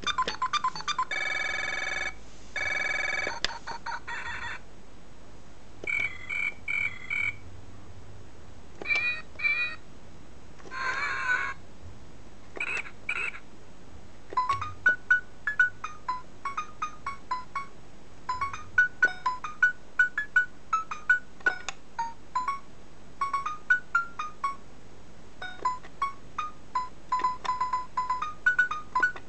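Electronic baby toy phone playing its built-in sounds: a ringtone-like trill in the first few seconds, then a few short sound effects, then from about fourteen seconds a simple beeping electronic tune of short notes.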